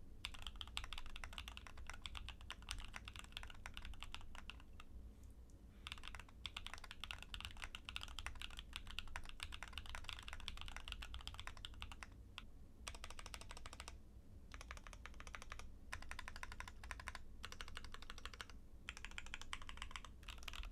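Typing sound test on a stock Keychron Q10 aluminium Alice-layout mechanical keyboard fitted with Gateron Baby Kangaroo tactile switches and PBT keycaps: fast runs of key presses broken by a few short pauses.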